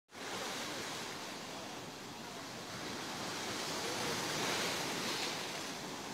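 Sea surf washing onto a beach as a steady rush, swelling a little about four to five seconds in as a wave comes in.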